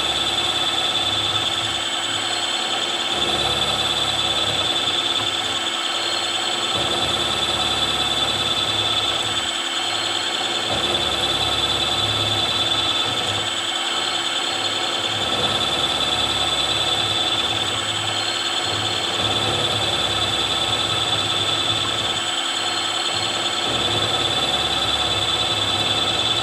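Milling machine running with a 6 mm end mill cutting a deep slot, a steady high whine over a lower rumble that rises and falls every few seconds as the cut goes on.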